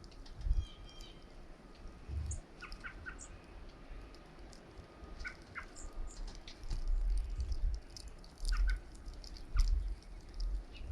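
Small birds chirping at a feeder: short, high call notes scattered through, some in quick pairs and triplets. Low thumps of wind buffeting the microphone in the snowstorm come and go and are the loudest sounds.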